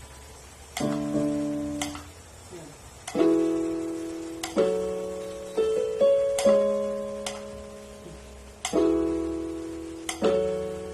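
Casio LK-41 electronic keyboard playing a slow series of chords, about seven in all, each struck and left to ring and fade before the next.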